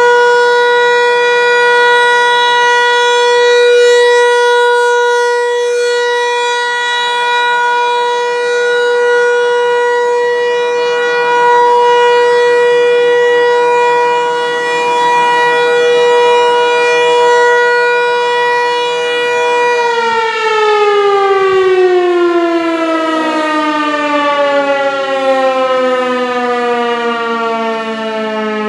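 Federal Signal 508 tornado siren sounding its steady Alert tone, a single held pitch with many overtones. About two-thirds of the way through it shuts off and winds down, its pitch falling steadily.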